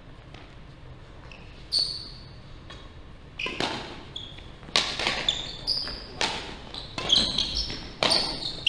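Badminton rackets striking a shuttlecock in a doubles rally, each hit a sharp crack with a short ringing ping. There is a single hit about two seconds in, then a quick run of exchanges in the second half, echoing in a large hall.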